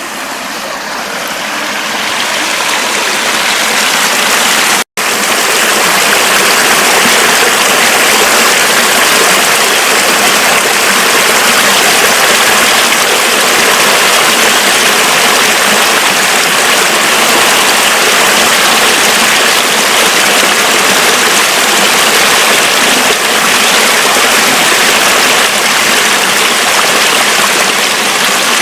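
Mountain river running high with snowmelt: a steady wash of flowing water that swells over the first few seconds, with a brief dropout about five seconds in.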